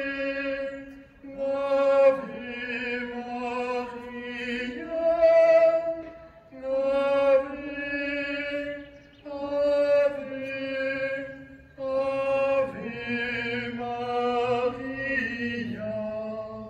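A slow sung liturgical chant: long held notes in several phrases of a few seconds each, with brief pauses between them.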